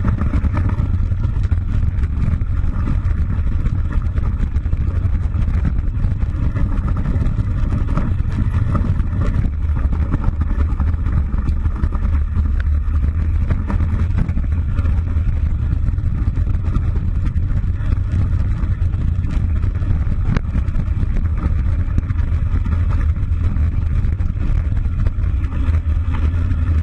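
Steady wind rumble and buffeting on a handlebar-mounted camera's microphone while riding down a dirt trail, with a noise haze above the low rumble.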